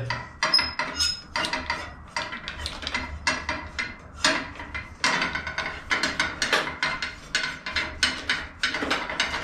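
Metal brake pull rod being worked down through the brake column's shaft and into the brake lever, with a run of irregular metallic clicks, taps and rattles as the parts knock together.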